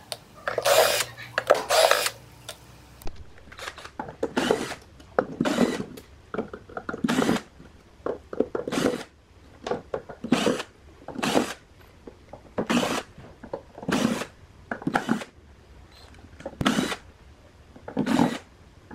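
Hitachi cordless drill-driver turning the screws on a power amplifier's transistor heatsinks, running in short bursts about once a second with brief pauses between screws.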